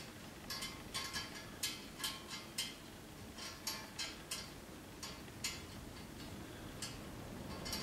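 Light metallic clicks and clinks of motorcycle exhaust pipes being worked into place by hand, irregular, about two or three a second, thinning out after about five and a half seconds.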